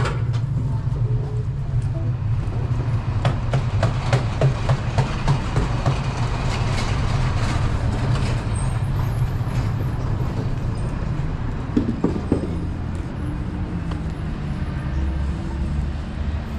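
Street ambience: a steady low rumble of traffic, with a quick run of rattling clicks a few seconds in and a couple more near the end.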